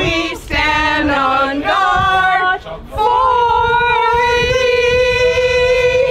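A small group of women singing together: a few short phrases, a brief break, then one long held note through the second half.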